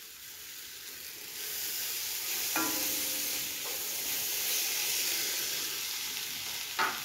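Onion, tomato and spice masala sizzling in hot coconut oil in a non-stick pot while stirred with a wooden spatula. The sizzle grows louder about a second in.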